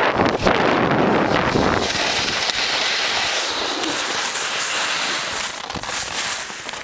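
Wind buffeting the microphone and skis hissing and scraping over packed snow during a downhill ski run, rumbling and crackly for the first couple of seconds, then a thinner hiss that drops in level near the end as the skier slows.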